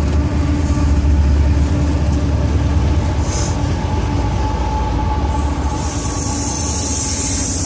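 Steady low mechanical rumble with a few faint steady tones above it, like running machinery or an engine. About five seconds in, a high hiss starts and cuts off suddenly near the end.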